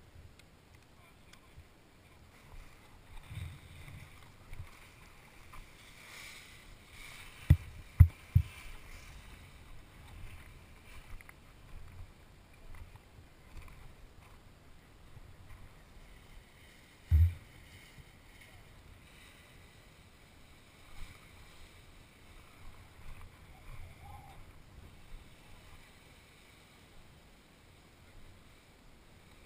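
Handling noise on a paraglider harness-mounted camera: a low rustling rumble, broken by three hard knocks in quick succession about seven and a half to eight and a half seconds in and one more about seventeen seconds in.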